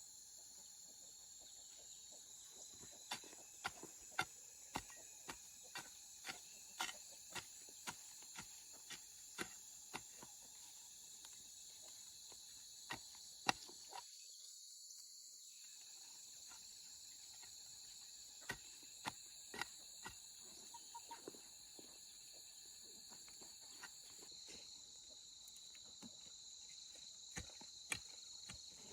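Steady high-pitched trilling of crickets or other insects, faint, with a run of sharp clicks or taps about two a second. The insect sound cuts out briefly about halfway through.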